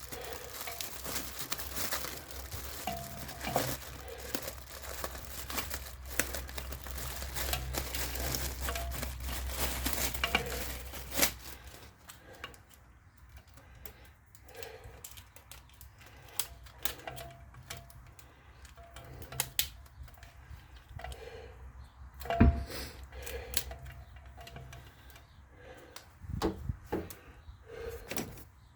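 Clarke bench grinder switched on and running with a steady low hum for about eleven seconds, then cut off with a sharp click, followed by a few light knocks and clicks.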